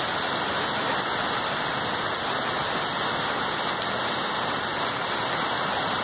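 A waterfall pouring down a rock face onto boulders and into a shallow pool: a steady, even rush of falling water.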